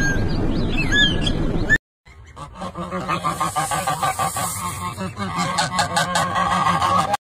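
A bird chirping a few times, then after a short break a group of ducks quacking in a rapid, continuous string of calls.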